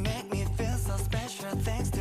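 Pop song playing, with a steady beat, a full bass line and a wavering melody line.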